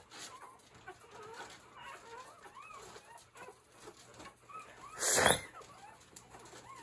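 Newborn puppies, four days old, squeaking and whimpering in short, high-pitched cries while being handled, with one brief, much louder sound about five seconds in.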